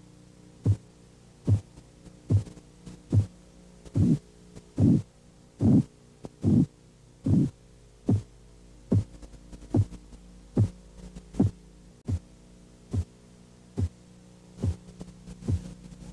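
Korotkoff sounds heard through a stethoscope as a blood-pressure cuff deflates: about twenty regular beats, a little more than one a second, over a steady low hum. They start as sharp taps, grow louder and broader in the middle, then turn soft and fade out near the end. This is the run of the five Korotkoff phases, from a systolic pressure of 110 through muffling at 80 to disappearance at a diastolic of 70.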